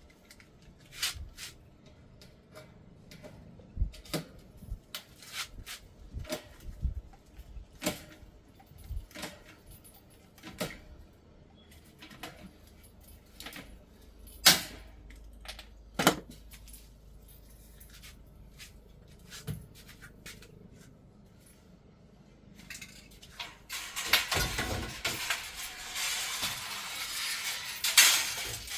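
Aluminium parts being handled: scattered light metallic clicks and taps, with two louder knocks about halfway through. Near the end comes about five seconds of continuous scratchy, scraping noise.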